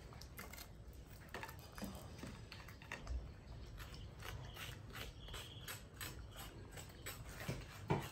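A spoon scraping and scooping soft meat out of a young green coconut's shell in short, irregular strokes, with small clicks, while a monkey chews the coconut meat. A sharper click comes near the end.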